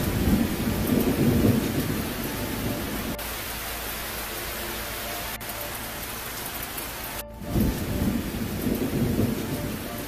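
Heavy downpour hissing steadily, with two rolls of thunder rumbling low: one at the start lasting about two seconds, another near the end.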